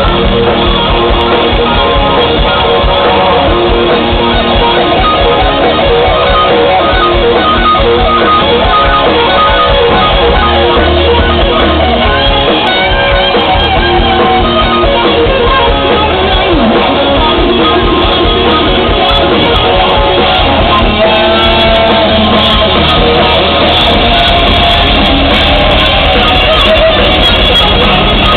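Live rock band playing loudly, with electric guitar, heard from among the crowd.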